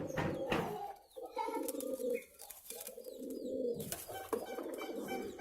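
Domestic racing pigeons cooing: several drawn-out, low coos one after another.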